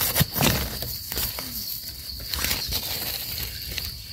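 Hand digging in loose damp soil with a small trowel, with irregular scrapes, crumbling earth and dry leaves rustling, as a termite mushroom's long stem is worked free of the ground.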